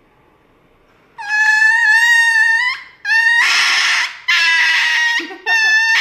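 Small white dog screaming as it is given an injection: a sudden high-pitched cry about a second in, held for about a second and a half, then three more loud cries in quick succession.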